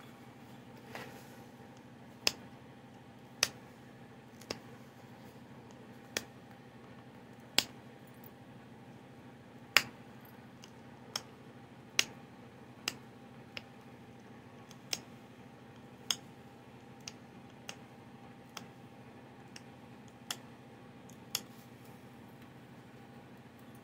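Flintknapping: sharp clicks as a stone preform is worked and flakes come off its edge, about eighteen at irregular intervals of one to two seconds, some much louder than others.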